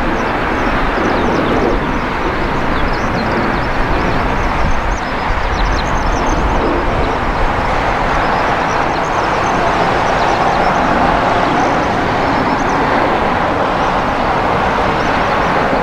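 GE90-115B turbofan engines of a Boeing 777-300ER running at low taxi power as the airliner rolls along the taxiway, a loud, steady jet noise.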